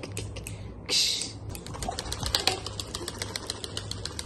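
A crinkly white wrapper being scrunched and shaken close by: rapid dry crackling, with a short rustling hiss about a second in.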